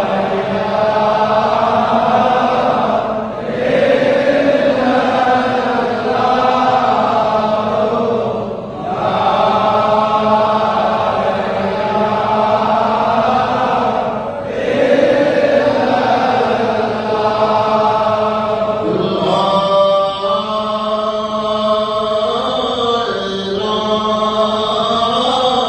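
Sufi dhikr chanting: voices hold long phrases that repeat about every five and a half seconds. About two-thirds of the way in, the chant moves higher and becomes more broken.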